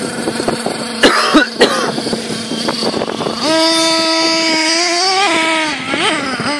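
Thunder Tiger MTA4 S28 RC truck's small .28 nitro engine, fitted with a twin exhaust, idling and blipped: held at high revs for about two seconds around the middle, rising slightly before dropping back to idle, then blipped once more near the end. A few loud sharp knocks about a second in.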